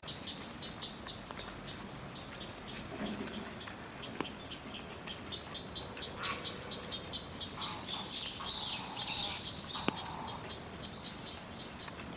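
Steady patter of rain with small birds chirping throughout, the chirping growing busier for a couple of seconds about two-thirds of the way through.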